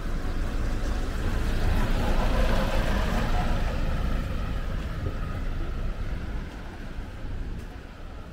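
Street traffic noise: a vehicle passing with a low rumble that swells to a peak a couple of seconds in and then fades.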